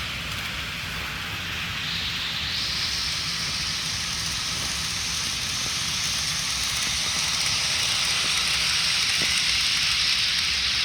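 HO-scale model diesel locomotive running at speed, its DCC sound decoder playing the GE ES44AC engine sound through a small onboard speaker, mixed with the rolling of the train on the track. A steady hissing rush that broadens and grows louder about two seconds in.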